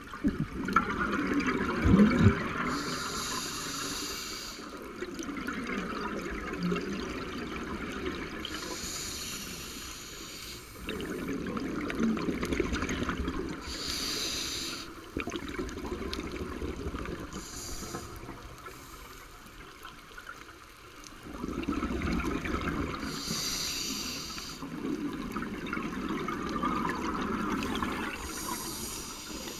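Scuba regulator breathing underwater: a short hiss of inhaled air about every five seconds, alternating with the longer bubbling rush of exhaled air.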